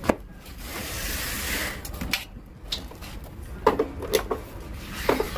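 Handling noise of XLR cables being plugged into the output sockets of a Soundbest Top 600 mixer: a soft rustle of cable, then several short sharp clicks and knocks as the plugs go in.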